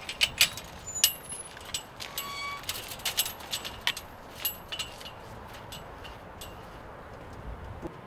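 Chain-link fence gate and its metal latch rattling and clanking as the gate is opened, a quick run of sharp metallic clicks and clanks, some briefly ringing. The clanks stop about five seconds in, leaving a steady background hiss.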